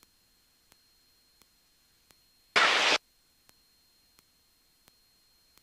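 A single short burst of radio static in the headset audio, lasting under half a second about two and a half seconds in, over an otherwise near-silent feed with faint regular ticks.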